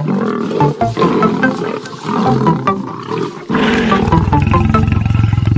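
Lion roar sound effect over background music with plucked notes. The roar is a rough, rumbling growl that swells to its loudest from about three and a half seconds in.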